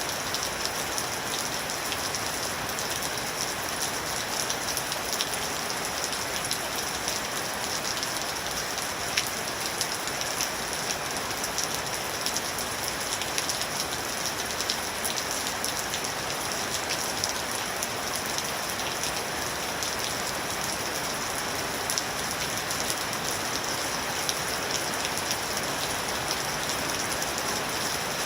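Steady rain falling, with many close individual drops ticking on a surface over an even hiss of rainfall.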